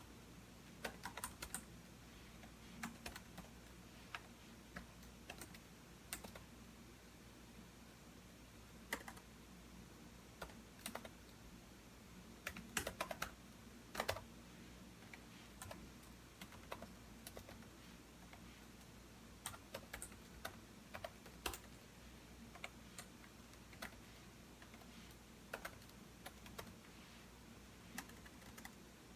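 Computer keyboard typing in short irregular runs of keystrokes, with pauses between them.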